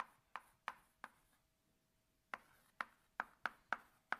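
Chalk tapping against a blackboard while an equation is written: a run of sharp taps, a pause of about a second, then a quicker run of taps.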